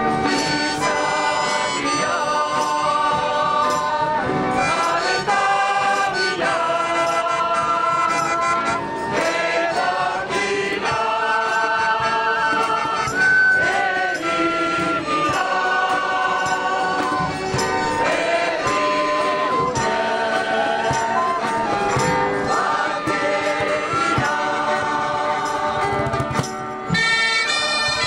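A large group of people singing a Basque song together in unison, with acoustic guitars accompanying. About a second before the end, bagpipes strike up.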